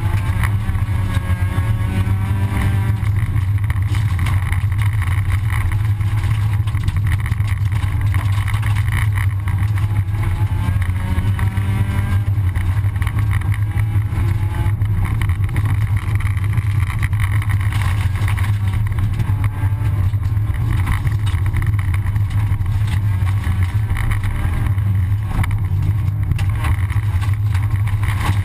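Rally car engine heard from inside the cabin on a dirt stage, pulling hard with its pitch rising and falling over and over, over a constant rush of tyre and road noise.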